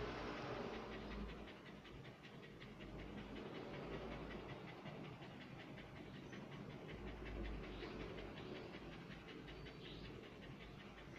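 A dog panting rapidly and rhythmically through an open mouth.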